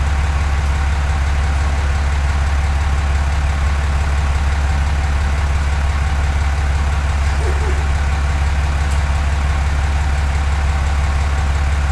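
Pickup truck engine idling: a loud, unchanging low drone that cuts off suddenly at the end.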